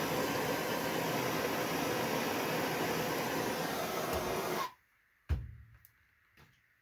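Handheld propane torch hissing steadily while it melts chasing pitch, shut off abruptly about two-thirds of the way through. A single sharp knock follows half a second later as the torch cylinder is set down on the steel bench, then a couple of faint clicks.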